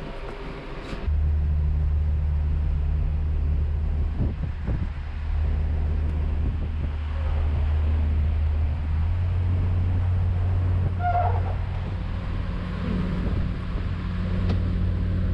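Engine of a small passenger boat running under way, a steady low drone heard from inside the cabin. It comes up sharply in level about a second in and shifts slightly higher around nine seconds.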